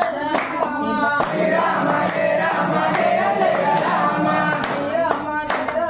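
A woman singing a devotional song, with a group clapping along in time at about two to three claps a second; the claps are clearest near the start and near the end.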